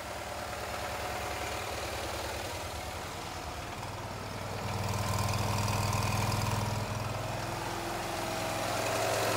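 Cushman Truckster's engine idling steadily. It picks up and runs louder about halfway through, still sounding fine.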